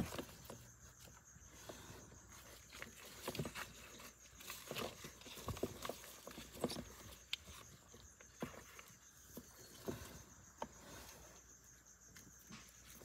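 Faint, scattered rustling and light clicking as hands move crumpled paper towel and hatchling lizards in a plastic tub, with a sharp knock right at the start.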